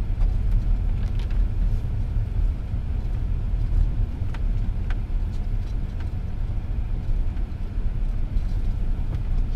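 Car driving slowly through snow, heard from inside the cabin: a steady low rumble from the engine and tyres, with a few faint ticks.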